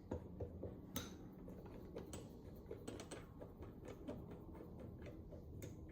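Faint, irregular light clicks and taps of a new ARP rod bolt being fitted by hand into a used 5.9 Cummins connecting rod, metal against metal.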